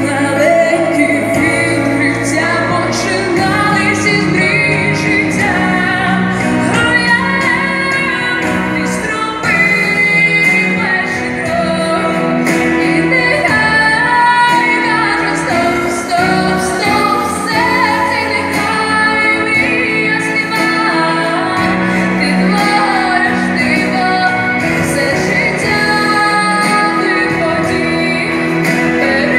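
A young woman singing a pop song into a handheld microphone over instrumental accompaniment, with long held notes in the melody.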